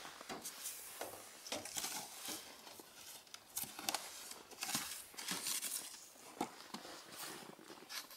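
Plastic sheeting rustling and crinkling in irregular bursts as damaged film is torn off a wooden door frame.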